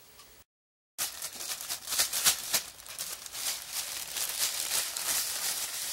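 Clear plastic bag crinkling and rustling in the hands as churros are put into it with sugar. The crackling starts about a second in, after a brief dead silence, and continues in a dense run.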